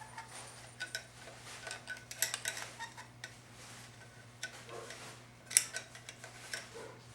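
A small steel hook tool clicking and scraping against a 4L60E transmission's metal input drum while prying at its retaining ring: a string of light metallic clinks, a cluster about two seconds in and the sharpest single click about five and a half seconds in.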